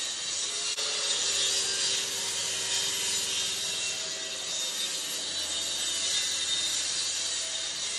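Plunge-cut track saw running along its guide rail, the blade cutting through thick timber boards: one steady high hiss of the blade in the wood, with a faint motor hum underneath.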